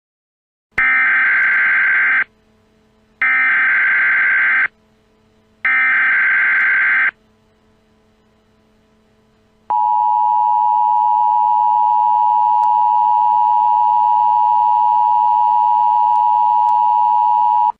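Emergency Alert System header: three identical bursts of SAME data tones, each about a second and a half long with short gaps between them. After a pause, the steady two-tone EAS attention signal begins about ten seconds in, announcing that an emergency message is about to be read.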